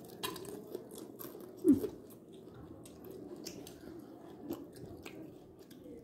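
A person biting and chewing food, with small wet mouth clicks. One brief louder sound, falling in pitch, comes about a second and a half in.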